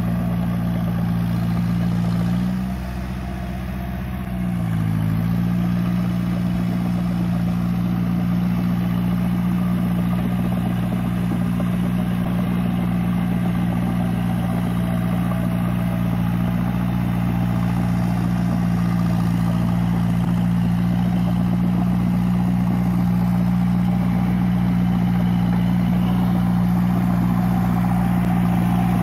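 Massey Ferguson 185 tractor's four-cylinder diesel engine running steadily; a few seconds in its speed and loudness drop briefly, then it picks back up and holds steady.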